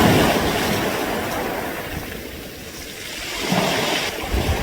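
Waves washing up a beach of smooth round pebbles, the water dragging the stones with a clattering hiss. The first surge fades over about two seconds and a smaller one follows about three and a half seconds in.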